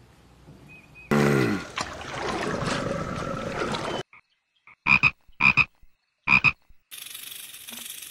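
A tree frog calling: three short, sharp croaks about half a second to a second apart, each a quick double note. About a second in comes a noisy sound that opens with a brief tone falling in pitch. Near the end a steady hiss begins.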